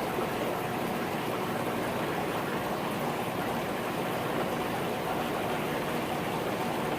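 Steady rush of running water from aquarium tanks, as filtration and aeration keep the water moving.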